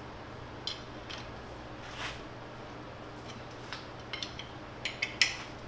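Short metallic clinks and ticks of a steel wrench on the nuts of the milling head's clamp bars as they are loosened, irregular and scattered, the sharpest clink near the end. A steady low hum runs underneath.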